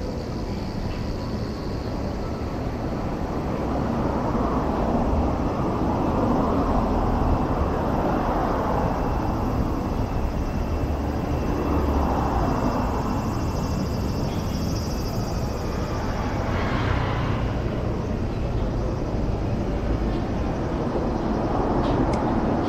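Busy city street noise: traffic rumble, with vehicles swelling past and fading every few seconds.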